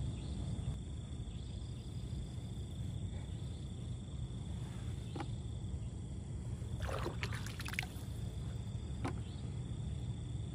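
Night-time pond-side ambience: a steady low rumble and a constant high insect trill. A few brief scrapes and splashes come about five seconds in, in a cluster around seven seconds, and once more near nine seconds, as the frog-baited set line is planted at the water's edge.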